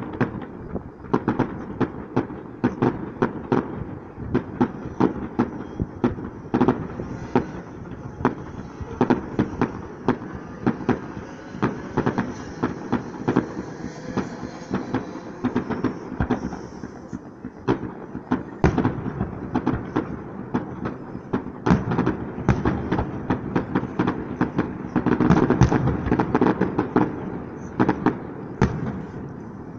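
Distant fireworks display: a continuous barrage of aerial shell bursts, several sharp bangs a second, growing thickest and loudest near the end.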